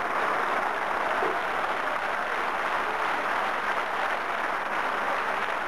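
Huge crowd applauding and cheering, a steady unbroken roar of clapping and voices.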